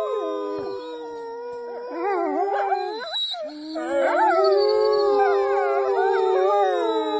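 A pack of wolves howling in chorus, several long sliding howls overlapping, joined by a woman howling through cupped hands. The chorus thins out around the middle, then swells fuller and louder from about four seconds in.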